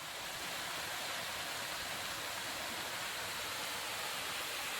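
Waterfall rushing: a steady, even hiss of water falling close by.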